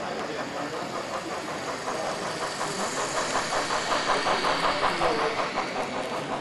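Model freight train cars rolling past on a model railroad layout, their wheels clicking rapidly and evenly over the track joints under a steady running rumble. It gets louder about three seconds in as the cars pass nearest.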